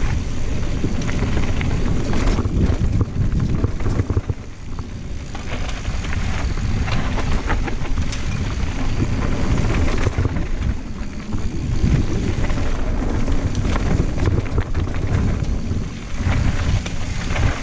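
Wind rumbling on the camera microphone and knobby tyres rolling over dirt and loose rock as a Santa Cruz Blur cross-country mountain bike descends singletrack fast, with frequent small knocks and rattles from the bike over the bumps.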